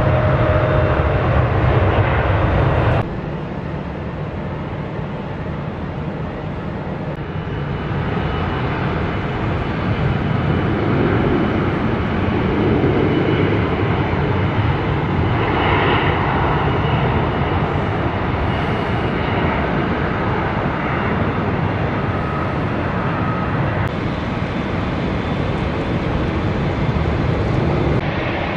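Outdoor airport ambience: a steady rush of distant aircraft noise. It drops suddenly in level about three seconds in and changes character a few more times.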